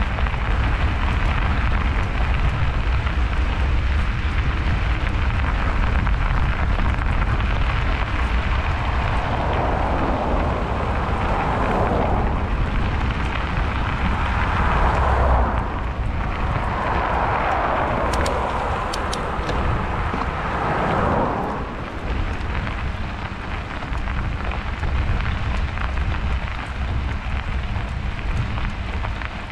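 Wind buffeting the microphone and tyre noise from a bicycle ride on a snowy road: a steady low rumble under an even hiss. Midway through, a louder hiss swells and fades twice.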